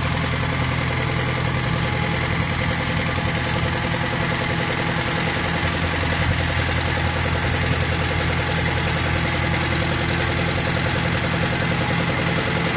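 Marine travel lift's engine running steadily while the hoist carries a motor cruiser in its slings.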